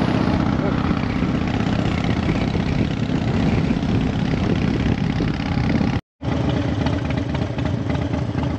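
Harley-Davidson Fat Bob's air-cooled V-twin engine running with a steady, dense rumble. The sound cuts out completely for a moment about six seconds in.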